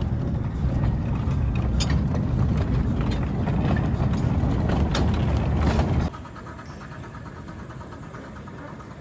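Miniature steam train rolling past close by, a dense low rumble of wheels on the rails with a few sharp clicks. About six seconds in it drops suddenly to a much fainter, distant running sound of the train.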